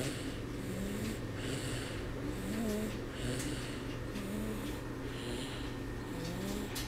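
Snoring: a rough breath about once a second, with a thin wavering whistle on some breaths, over a steady low hum.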